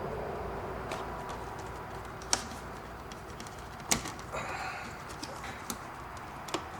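Scattered sharp plastic clicks and handling noises as the headlight switch panel is pried and worked loose from the dash. Two louder clicks come near the middle.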